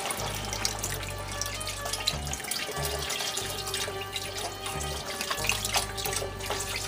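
Vegetable broth and chicken stock poured in a stream from cartons into a steel stockpot of browned pork and onions, splashing, over background music with a bass line.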